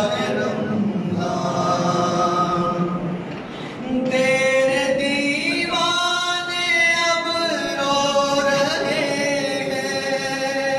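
A man singing an unaccompanied chant into a microphone, with long held notes; he pauses briefly about three and a half seconds in, then goes on with higher held notes.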